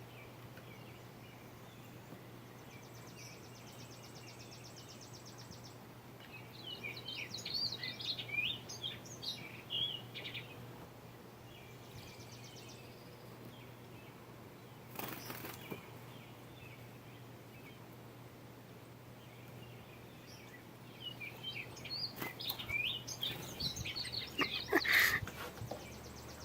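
Small bird chirping in two spells of quick, high calls, over a steady low hum, with a brief rush of noise about halfway through.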